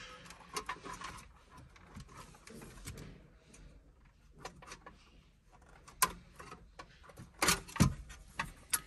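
Screwdriver working screws out of the metal side bracket of a Mercedes CLA factory radio: faint scattered clicks and scrapes of metal on metal, with a few louder knocks about six seconds in and again near the end.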